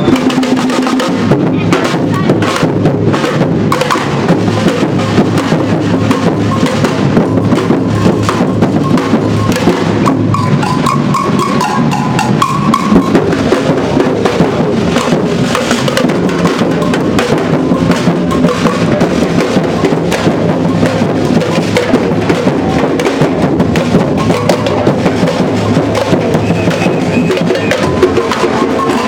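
A street percussion band drumming a fast, steady rhythm: large bass drums beaten with mallets under sharp clicks from small hand-held drums struck with sticks.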